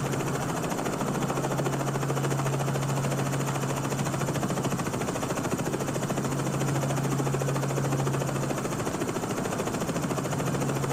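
Steady helicopter engine and rotor noise: a constant hum under an even rushing sound that does not change.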